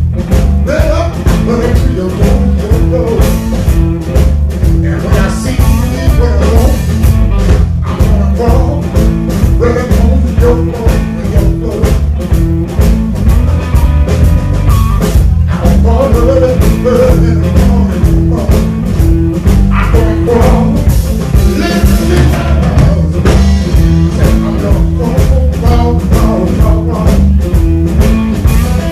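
Live blues band playing loudly: electric guitar, electric bass and drum kit in a steady groove, with a man singing into the microphone.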